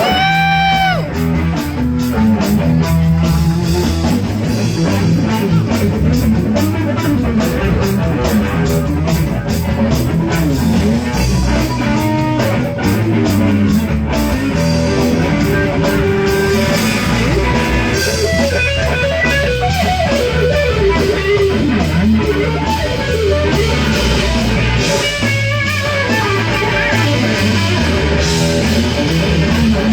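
A live rock band playing an instrumental passage, with electric guitar lines bending over bass and drums.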